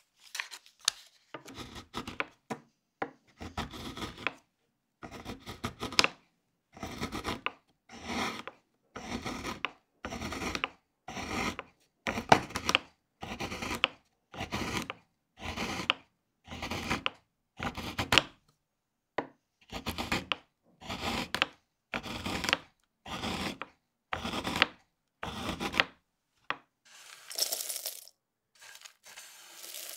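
Chef's knife chopping a bar of dark chocolate into shavings on a wooden cutting board, with steady strokes about once a second. Near the end, the knife scrapes the shavings off the board into a glass bowl.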